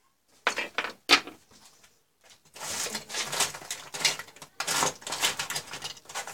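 Handling noise as multimeter test leads and probes are picked up and laid on a workbench: two sharp knocks about half a second and a second in, then a few seconds of scraping and rustling.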